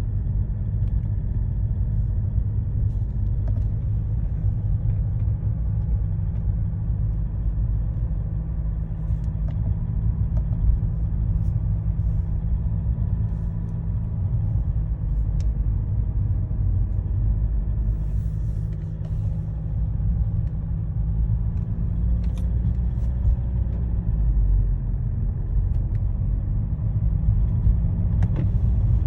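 Mercedes OM646 four-cylinder diesel engine running steadily from cold, a low rumble with faint scattered clicks above it, carrying the strange noise the owner hears when it is cold.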